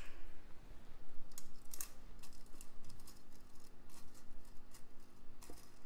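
Thin-wire LED fairy lights being handled and arranged inside a clear acrylic cake separator: scattered light clicks and ticks as the wire and tiny bulbs tap against the acrylic, over a faint steady hum.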